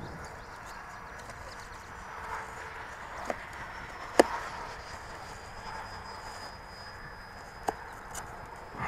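Hands handling a crashed RC biplane's damaged airframe: a few sharp clicks and taps, the loudest about four seconds in, as it is touched and then lifted. A faint high steady whine runs through the middle.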